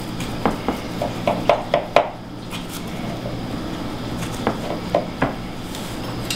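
Knife cutting through a pie's crust and clicking and scraping against the pie dish, a quick run of sharp taps in the first two seconds and a few more later on.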